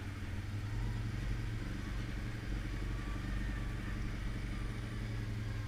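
ATV engine running at a steady throttle while riding along a rough dirt trail, a low even drone that holds the same pitch throughout.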